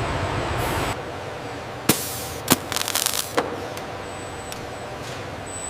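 A steady rushing noise that stops about a second in, then a handful of sharp mechanical clicks and clacks, several in a quick cluster just after the middle, over a low steady hum.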